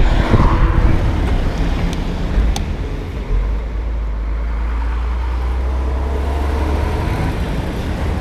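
Road traffic noise: motor vehicles running along the road, a steady low rumble with no one speaking over it.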